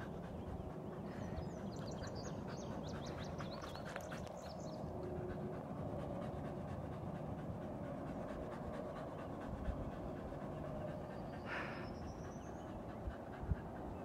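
A person breathing hard close to the microphone over a steady outdoor hum, with a few faint high chirps early on and one short rising chirp near the end.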